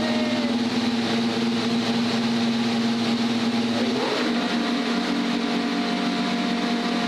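Ferrari SF25 Formula 1 car's turbocharged 1.6-litre V6 running at a steady high idle, with a brief falling whine about four seconds in before it holds steady again.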